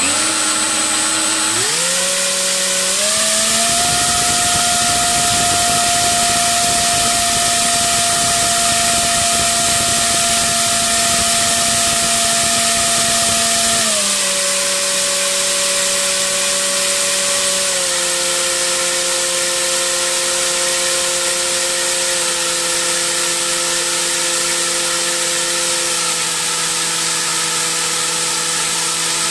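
3536 brushless outrunner motor driving an 8x6 three-blade propeller on a 4S battery: a loud electric whine with propeller buzz that climbs in pitch over the first few seconds to full throttle and holds steady. About halfway through it drops in pitch, then steps down twice more as the throttle is lowered. A faint high steady whistle runs underneath.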